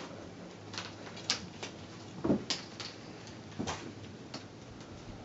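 Scattered light clicks and taps, about seven at uneven spacing with a slightly heavier knock about two seconds in, from cats pouncing on a feather wand toy on a tile floor.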